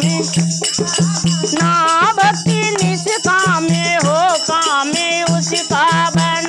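Women singing a Hindi devotional bhajan to a steady dholak beat, with small brass hand cymbals (manjira) and a hand-held rattle shaken in time.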